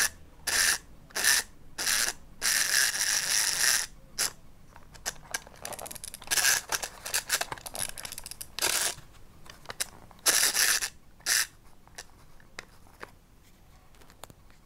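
Clockwork motor of a small plastic toy fire engine, its gears ratcheting in a string of short bursts, with one longer run of about a second and a half two to four seconds in. The bursts thin out and fade near the end.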